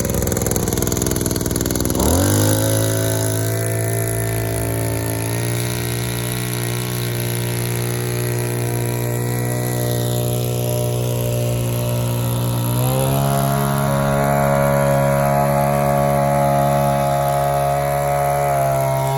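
Small engine of a Maruyama backpack power sprayer running steadily. It picks up speed in a quick step about two seconds in, then again about thirteen seconds in, holding each speed in between.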